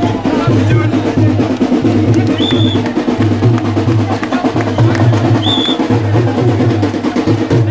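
Music with a steady drum beat, the low beat pulsing about once a second, and two brief high tones partway through.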